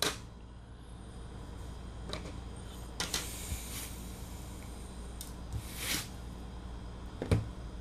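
Phone parts being handled and set down on a tabletop: a few scattered soft clicks, taps and rustles, the sharpest near the end, over a low steady hum.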